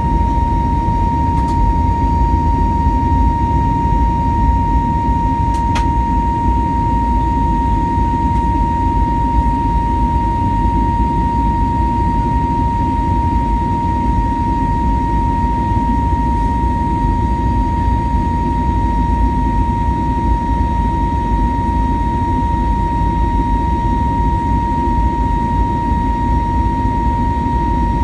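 Airbus A320neo passenger cabin during takeoff: the jet engines and airflow make a loud, steady low rumble, with a steady high whine just under 1 kHz above it. There are faint clicks about one and a half seconds and six seconds in.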